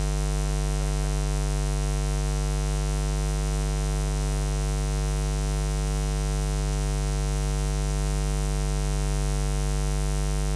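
Steady electrical mains hum: a low buzz with a stack of even overtones and no speech or other sound over it.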